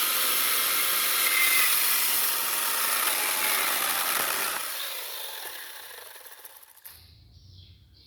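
Power tool cutting into wood, a steady harsh noise that fades away over the last few seconds.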